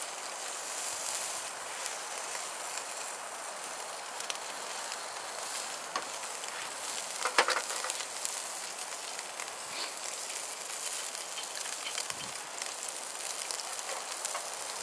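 Wood campfire crackling: a steady hiss with scattered sharp pops, one louder pop about halfway through.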